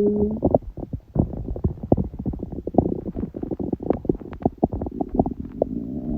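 A woman's stomach gurgling and rumbling, recorded close up: a quick, irregular run of low pops and bubbling, with a brief low tonal growl at the start. She has a stomachache on the third day of her period.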